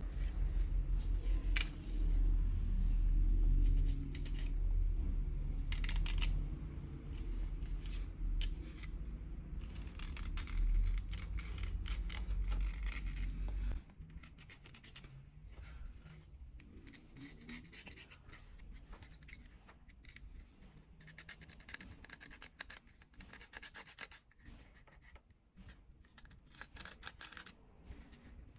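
Small repair tools scraping, rubbing and clicking against a smartphone's parts, in short irregular strokes. For the first half a loud low rumble runs underneath and cuts off suddenly about halfway through.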